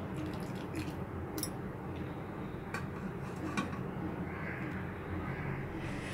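A few faint clicks of a metal spoon against a metal pot of soup, over steady low background noise.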